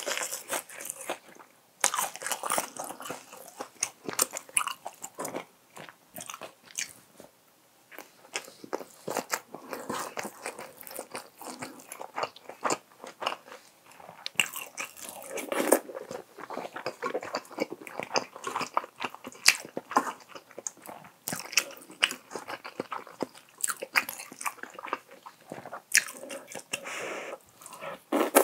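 Close-miked mouth sounds of a person eating spicy braised tofu with rice and dried laver: steady chewing and biting with many short, sharp, irregular wet clicks and smacks. A few quieter pauses fall about a quarter of the way in.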